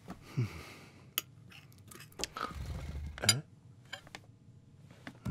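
Cartoon foley of a knife and fork on a dinner plate: sharp clinks and a scraping stretch as food is cut, with two short low voice sounds, the second one the loudest.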